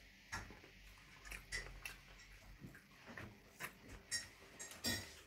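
A person chewing and smacking his lips over a mouthful of rice and curry eaten by hand: a run of short, irregular wet clicks, with one louder smack near the end.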